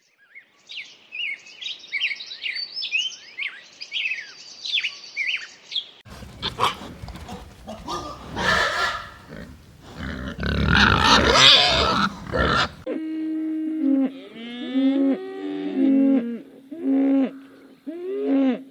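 Three different animal calls in a row: quick high chirps for the first six seconds or so, then a loud, rough call, then lower, pitched calls that bend up and down.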